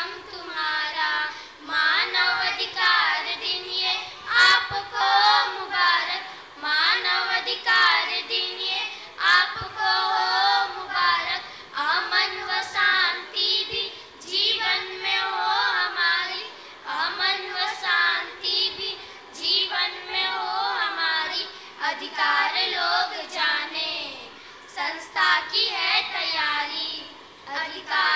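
A small group of young girls singing a song together into stage microphones, in phrases a second or two long with short breaths between them.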